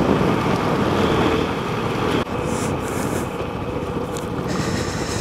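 Motorcycle engine and exhaust heard from the rider's seat while the bike slows down, with wind rushing over the microphone. The engine note drops out sharply for a moment about two seconds in, then carries on.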